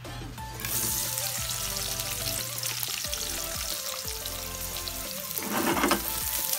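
Chopped white onion hitting hot cooking oil in a wok, starting to sizzle about half a second in and sizzling steadily. Near the end there is a louder, brief rush as the wok is shaken and the onion pieces slide across the pan.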